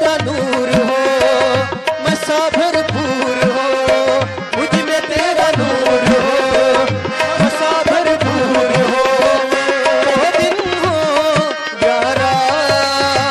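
Instrumental interlude of a Hindi devotional song: a keyboard melody with vibrato over a steady tabla rhythm, some of the low drum strokes sliding in pitch.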